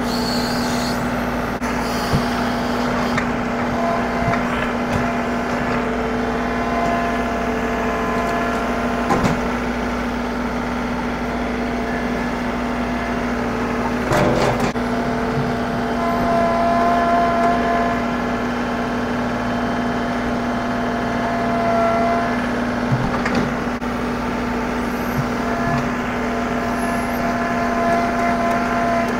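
John Deere 2038R compact tractor's diesel engine running steadily under work, with a steady whine that strengthens at times as the front loader moves. About halfway through there is a brief rush as the loader bucket dumps soil.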